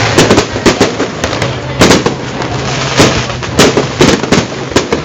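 Fireworks going off: sharp bangs at irregular intervals, a few a second, with a continuous crackling hiss between them. The loudest bangs come about two and three seconds in.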